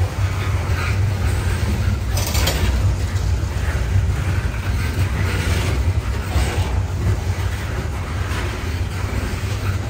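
CSX coal train cars rolling past close by: a steady low rumble of steel wheels on the rails with ongoing clatter. A brief harsh burst about two seconds in, and fainter ones later.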